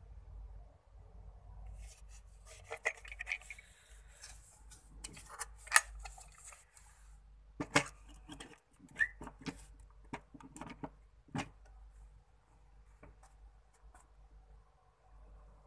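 A MIDO MD-202 plug-in burner controller being handled and pushed onto its socket: an irregular run of plastic clicks and knocks with light scraping, loudest in the middle, then thinning out to a few faint ticks.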